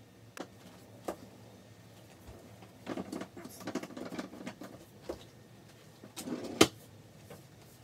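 Belongings being handled while tidying a room: a few light clicks, a stretch of rustling in the middle, and a sharp knock near the end, as things are put away at a set of drawers.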